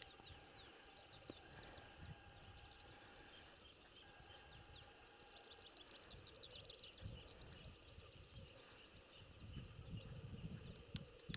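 Faint songbirds singing in the spring woods: many short, high, down-slurred chirps that come thick and fast in the middle. A low rumbling noise, from wind on the microphone or handling, grows toward the end.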